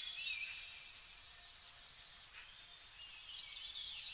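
Birds chirping over faint outdoor background noise, the chirping growing louder and busier near the end.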